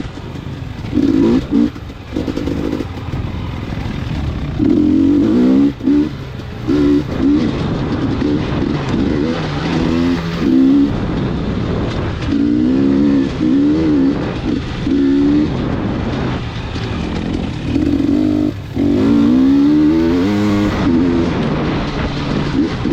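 A motor vehicle's engine running, its pitch repeatedly rising and falling.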